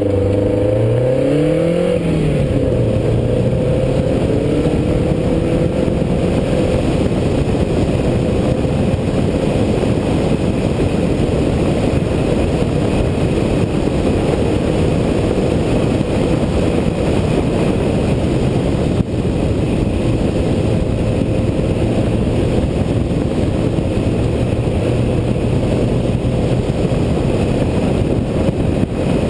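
Saab 900 Turbo SPG's turbocharged 2.0-litre four-cylinder accelerating hard off the line, revving up and shifting about two seconds in. It then runs on at speed, mostly covered by a loud steady rush of wind and road noise on the hood-mounted microphone.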